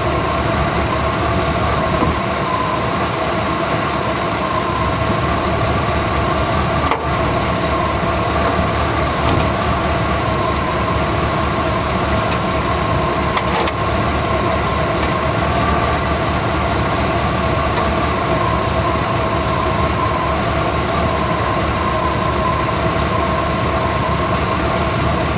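An engine idling steadily, with an even low pulse and a steady hum, not the van's own engine, which is not yet running. Two brief clicks come through it, about a third of the way in and about halfway.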